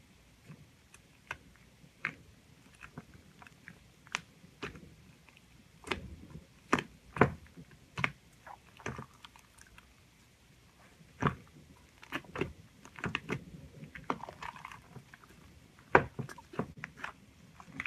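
Slime being squeezed and poked by hand: irregular sticky clicks and small pops, sparse at first and coming in quicker, louder clusters from about six seconds in.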